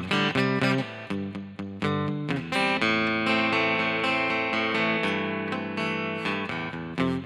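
Fender Santa Rosa acoustic guitar in 10-gauge strings played through a Marshall 80V solid-state combo amp: a run of picked notes, then a chord strummed and left to ring for about four seconds before picking resumes near the end.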